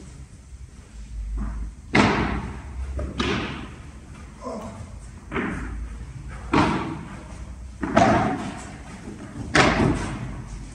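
Padel rally: the ball is struck by rackets and rebounds off the court, about six sharp hits every one to two seconds, each echoing briefly in the large hall.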